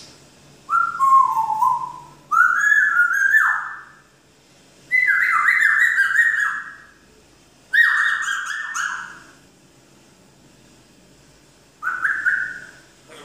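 African grey parrot whistling: five loud whistled phrases of about a second each, mostly sliding down in pitch, with gaps of a second or two between them.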